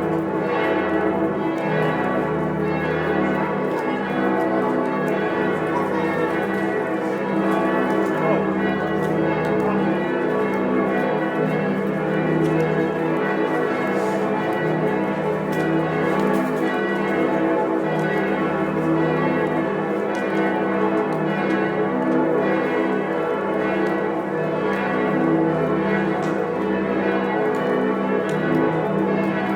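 Several large church bells ringing together in a continuous full peal, their strikes overlapping into a dense, steady wash of ringing tones with a deep hum underneath.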